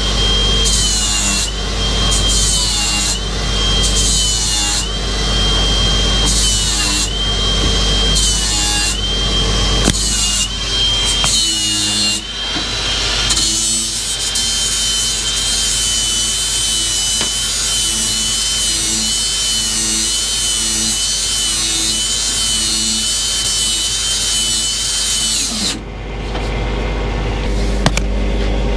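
Angle grinder dressing a steel plate before welding, its high whine dipping about once a second as it is pressed onto the work, then running steadily and cutting off abruptly near the end. Background music plays underneath.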